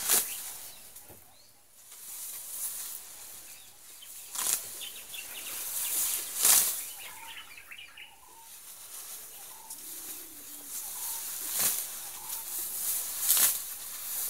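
Young Sri Lankan elephant pulling and tearing grass with its trunk while feeding: a series of short, sharp rustling swishes, the loudest about six seconds in.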